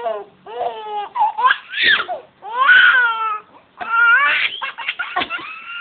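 A baby's loud, high-pitched squeals, about six in a row, with two drawn-out ones in the middle.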